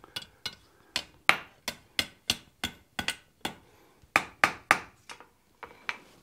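Hand hammer striking a hot steel bar on an anvil in quick, light blows, about three a second, with a short pause a little past halfway: forging the tail of a mouse hook.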